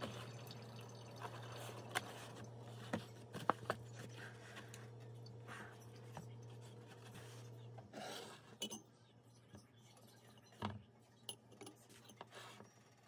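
Kraft paperboard takeout box handled and its folded flaps pulled open: scattered light taps and clicks with papery rustling, over a low steady hum that stops about two-thirds of the way in. A single knock comes near the end.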